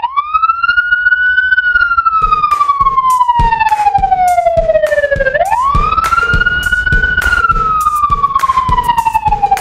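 A siren wailing: its pitch rises quickly, then falls slowly, and rises again a little past halfway. A steady drum beat joins about two seconds in.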